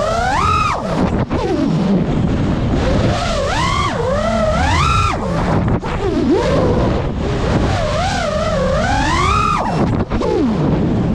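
Brushless motors and propellers of a GEPRC Mark 5 FPV quadcopter whining and buzzing, the pitch sweeping up and down constantly as the throttle changes. The sound dips briefly three times, about a second in, near the middle and near the end.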